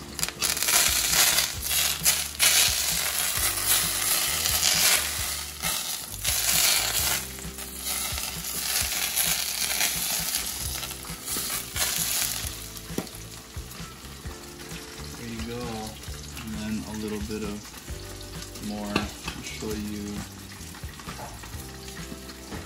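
Hot peanut oil poured over green onion and cilantro on steamed fish, sizzling loudly for about twelve seconds and then dying down. This is the final hot-oil step of Chinese-style steamed fish, which flash-cooks the herbs.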